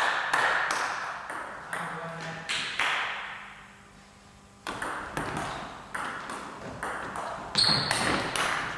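Table tennis ball clicking sharply against the table and the players' bats. A few bounces come first, then a pause of about a second and a half, then a serve and rally of quick clicks a fraction of a second apart, the hardest hit near the end.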